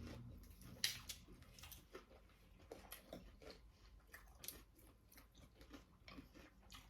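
Faint close-up chewing and biting of food, with scattered soft crunches and wet mouth clicks.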